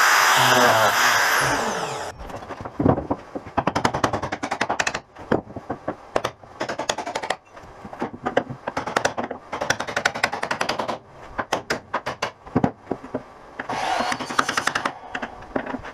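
Angle grinder grinding on a metal boat deck, then let go about a second in and spinning down, its whine falling in pitch. After that comes a long run of irregular, quick metallic clanks and knocks.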